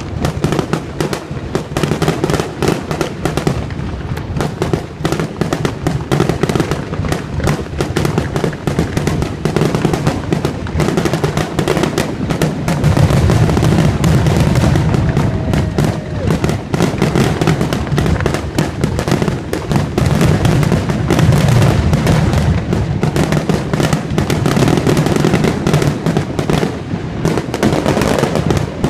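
A dense fireworks barrage: rapid, overlapping bangs and crackles over a continuous rumble, building heavier from about halfway through.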